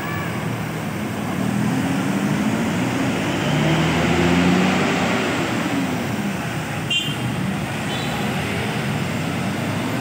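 Intercity coach engine pulling away and accelerating, its note rising to a peak about four seconds in and then easing off, over steady road traffic and passing motorcycles. A brief click and a short high beep about seven seconds in.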